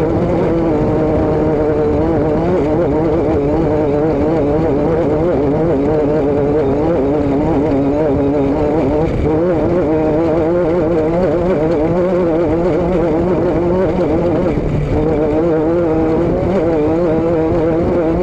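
A vehicle engine running steadily under way, its drone wavering slightly in pitch over a constant low rumble and rushing noise.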